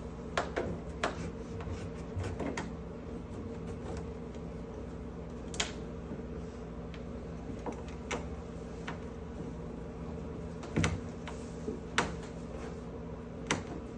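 Scattered clicks, taps and knocks of a refrigerator's plastic base cover being handled and pried off, with a sharper double knock about eleven seconds in, over a steady low hum.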